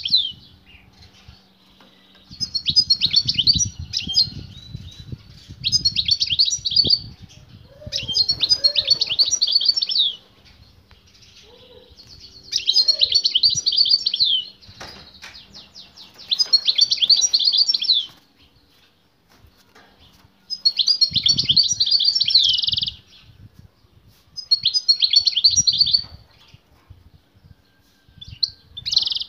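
Male European goldfinch singing vigorously in a cage. About seven bursts of fast, high twittering song, each about two seconds long with short pauses between. It is singing in response to a female singing beside it.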